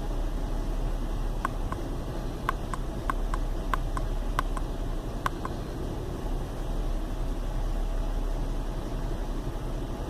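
Chevy Venture's 3.4-litre V6 idling rough with a steady rumble, the sign of a failed hydraulic motor mount. A run of about a dozen short, sharp clicks comes a second or two in and stops about halfway.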